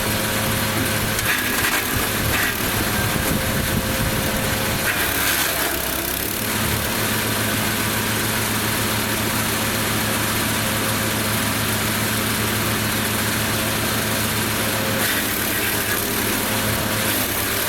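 Lumag Rambo HC15 petrol wood chipper running steadily at a constant speed. Brief bursts of harsher noise about a second in and again around five seconds in are branches going through the cutter.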